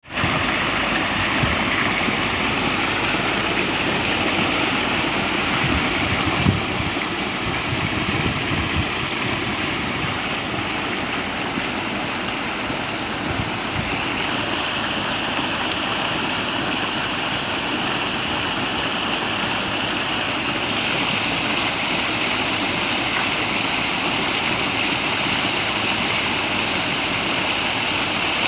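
Steady rush of water pouring from a sump pump's discharge.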